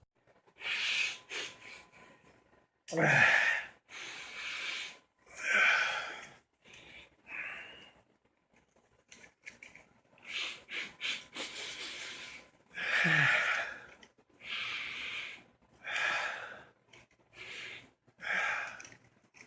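A man sniffing hard and repeatedly through his nose, about a dozen long noisy sniffs and breaths with short pauses between, twice with a brief falling moan.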